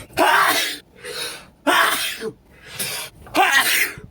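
A person sneezing three times in quick succession, each sneeze preceded by a sharp breath in. The sneezes come from a cold-congested nose, brought on by sniffing pepper.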